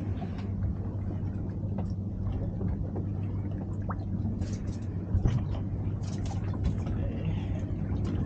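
A steady low mechanical hum aboard a small fishing boat, with scattered light clicks and taps from fishing gear being handled.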